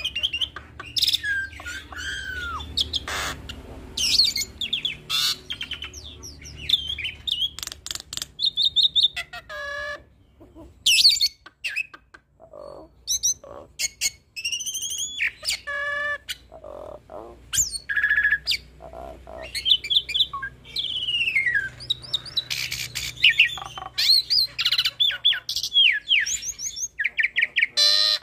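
Hybrid starling (jalak suren pied starling × jalak nias hill myna) singing a varied song packed with different phrases: clear whistles, rising and falling glides, rapid trills, harsh squawks and clicks, thinning out briefly near the middle.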